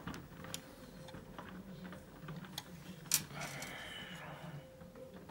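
Small clicks and handling sounds from working on plastic model parts with small tools, with one sharper click about three seconds in followed by a brief rustle, over a low steady hum.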